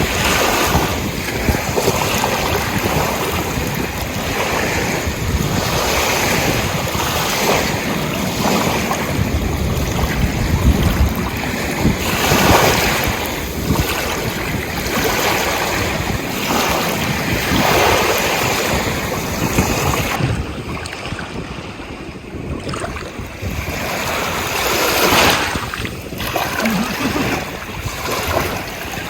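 Ocean waves washing in and breaking, surging and easing every few seconds, with wind buffeting the microphone. A quieter lull comes about two-thirds of the way through.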